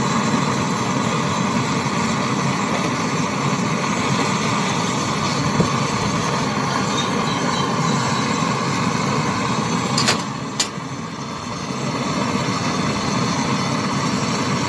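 Brazing torch flame hissing steadily as it heats a copper pipe joint on a freezer's refrigerant line. Two sharp clicks come about ten seconds in, after which the sound is briefly quieter before it steadies again.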